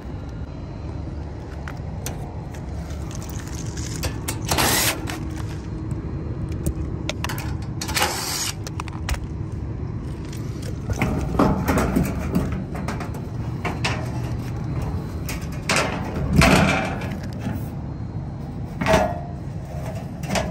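Sheet-metal access panels on a rooftop HVAC package unit being handled and opened: several short metallic clanks and rattles over a steady low rumble.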